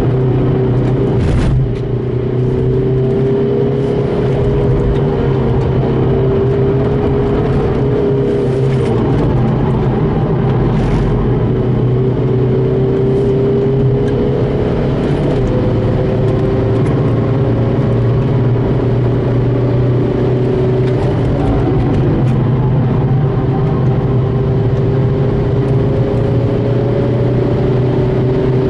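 VW Golf Mk5's remapped 2.0 TDI PD four-cylinder diesel engine pulling hard under load on a race track, its pitch climbing slowly through long stretches in gear, with a brief dip about two seconds in and steady road noise underneath.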